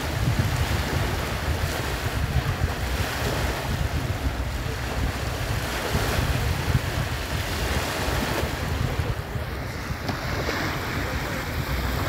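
Small waves breaking and washing up onto a sandy beach, with wind buffeting the microphone in a low, uneven rumble.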